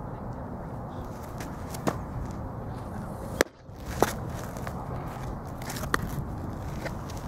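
A baseball smacking into a catcher's mitt, a sharp pop, with a few lighter clicks and knocks around it from the catch and throw-back, over a steady background rush.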